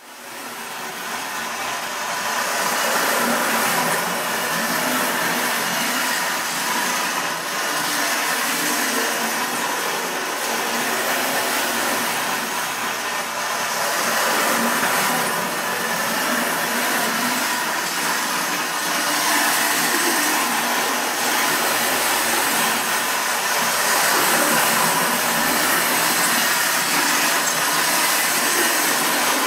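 Distler H0 battery-powered toy train running on metal track: a steady whirring of its small electric motor with the running noise of the wheels. It fades in over the first couple of seconds.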